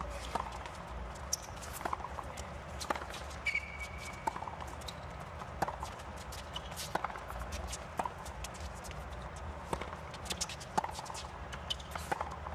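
Tennis being played on a hard court: scattered sharp pops of the ball off the rackets and bouncing on the court, with players' footsteps, over a low steady hum.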